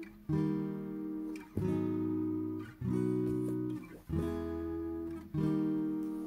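Background music: an acoustic guitar strumming sustained chords, a new chord struck about every second and a quarter.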